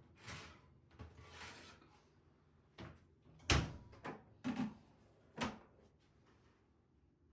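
Household handling sounds: two soft rustles, then five knocks or clunks spread over about three seconds, the loudest about three and a half seconds in.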